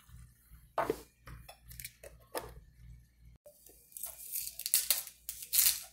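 A few separate clicks and knocks, then from about four seconds in a hand-twisted pepper grinder crunching a mix of black, white, green and pink peppercorns in quick rasping strokes.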